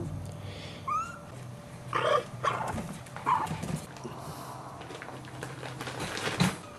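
Dogs whining and yipping: a short rising whine about a second in, then several short yips. A few sharp knocks near the end.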